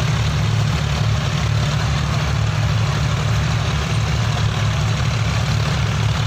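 Several tractor diesel engines running together under load as they pull tillage implements through the soil: a steady, low hum that holds at an even level.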